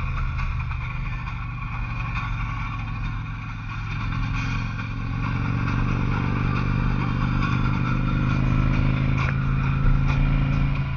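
Harley-Davidson Electra Glide Classic's fuel-injected Twin Cam 88 V-twin running under way, heard from the rider's seat on the climb. About four seconds in the engine note rises and gets louder as it pulls harder.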